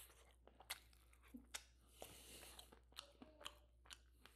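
Faint chewing of a smoked barbecue chicken wing, with small scattered clicks and smacks as the meat is chewed and the wing is picked apart by hand.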